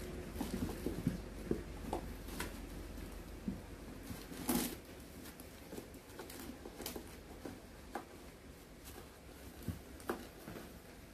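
Cats and kittens moving about and eating: scattered light taps, clicks and rustles from paws, kibble and cardboard, with one stronger knock about four and a half seconds in.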